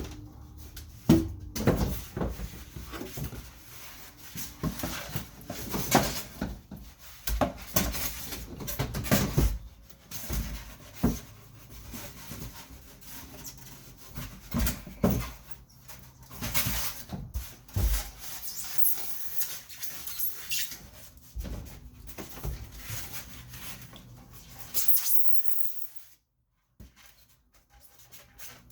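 Irregular knocks, bumps and rustling, as of materials being handled and set down. The sound drops to near silence for about two seconds near the end.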